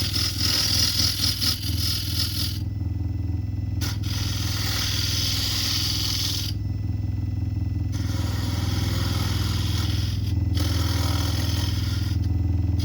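Wood lathe running with a steady motor hum while a carbide turning tool cuts a spinning yellow cedar and walnut bowl blank. The cutting comes as a scraping hiss in passes of about two to three seconds, broken by short pauses of about a second.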